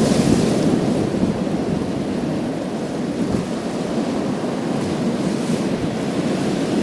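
Sea waves washing over a pebble beach: a steady rushing wash that eases through the middle and starts to swell again near the end.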